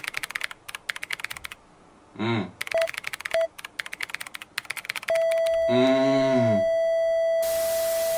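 Meme-video sound effects: rapid typewriter-style clicks as on-screen text appears, then two short electronic beeps like a heart monitor, followed about five seconds in by a long steady beep, a heart monitor's flatline marking the grandfather's death. A short wailing voice rises and falls over the flatline, and a hiss of noise joins near the end.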